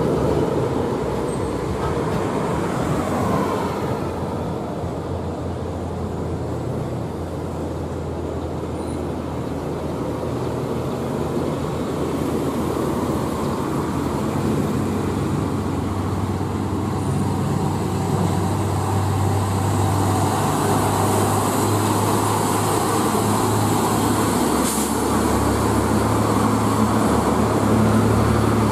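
Heavy diesel trucks, among them an Isuzu Giga FVZ 285, running at low speed with road traffic noise. A low engine drone grows stronger in the second half as a tractor-trailer passes.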